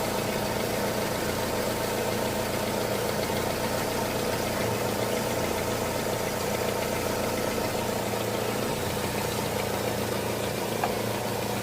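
Nissan Almera HR15 1.5-litre four-cylinder engine idling steadily, left running in park while the transmission fluid level is set. A single short click sounds near the end.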